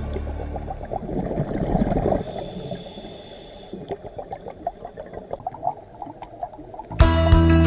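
Underwater gurgling of a scuba diver's exhaled bubbles, heard through the camera housing, loudest in the first half and fading to a fainter bubbling with scattered clicks. Background music fades out at the start and cuts back in suddenly near the end.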